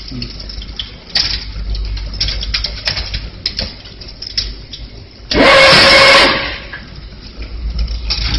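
Double-wire automatic chain link fence weaving machine running over a low motor hum, its mechanism clattering with irregular clicks and knocks as it weaves wire into diamond mesh. About five seconds in, a loud burst of hissing noise lasts about a second and is the loudest sound.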